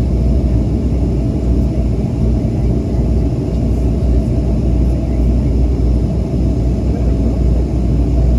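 Steady low drone of a Bombardier Dash 8 Q300's twin turboprop engines and airflow, heard inside the cabin.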